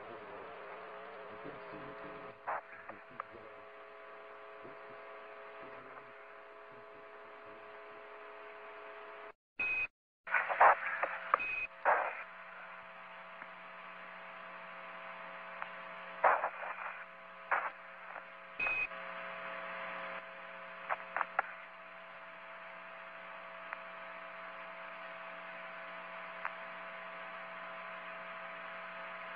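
Radio-link hum made of several steady held tones, broken by scattered crackles and a few short high beeps. The sound cuts out for a moment about ten seconds in.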